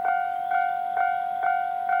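Japanese level crossing warning bell ringing, struck about twice a second in an even two-tone clang, signalling that a train is approaching.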